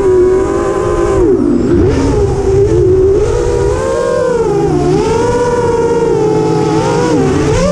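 FPV quadcopter's motors and propellers whining. The pitch rises and falls with the throttle as it swoops low across the yard.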